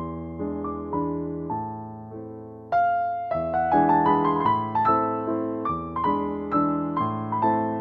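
Background piano music: single struck notes in a gentle melody over low bass notes, fading briefly about two and a half seconds in and then coming back in more strongly.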